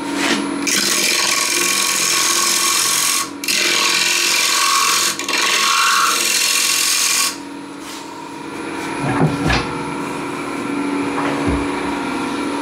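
Spindle gouge cutting the top rim of a bowl blank spinning on a Neureiter Twister XL wood lathe: the cut is a loud steady hiss in two passes, with a short break about three seconds in, and it stops about seven seconds in. The lathe then runs on with a steady hum, and a few knocks come near the end as the tool rest is moved.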